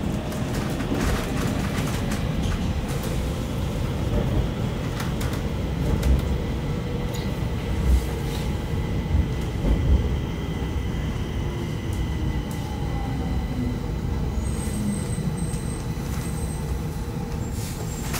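Stockholm metro train heard from inside the carriage as it slows into a station: a steady rumble of wheels on rail with knocks every few seconds, and an electric motor whine falling in pitch as the train brakes. Brief faint high squeals come near the end.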